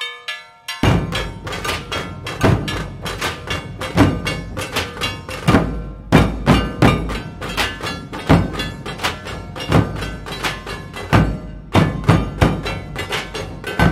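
Dhol tasha ensemble playing: large dhol barrel drums beaten with stick and cane, driving a fast, loud rhythm. The piece opens with a bell-like ringing pattern, and the drums crash in together about a second in. The beat breaks off for a moment twice, near the middle and again near the end.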